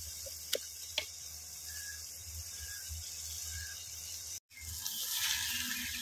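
Thick masala sizzling in an aluminium pot, with the metal ladle tapping the pot twice in the first second. About four and a half seconds in, the sound cuts out briefly, then a louder sizzle follows as raw crabs cook in the hot masala.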